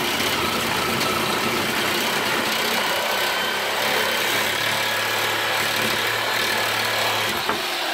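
Reciprocating saw running steadily, its blade cutting through a car's exhaust pipe just ahead of the catalytic converter.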